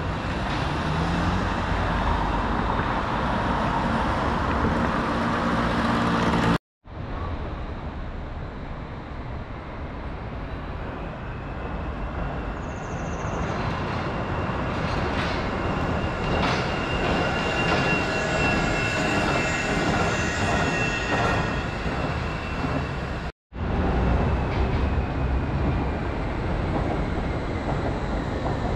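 Wuppertal Schwebebahn suspended monorail running, its steel wheels rolling on the overhead rail with a continuous rumble. A high thin squeal runs through the middle part. The sound cuts out briefly twice.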